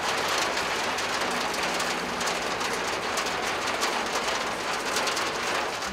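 Heavy rain drumming on the roof and windscreen of a vehicle cab: a steady dense hiss full of sharp drop hits.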